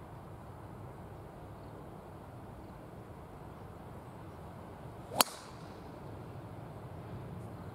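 A golf tee shot: a club face strikes the teed-up golf ball once with a single sharp crack about five seconds in, just after a brief swish of the downswing.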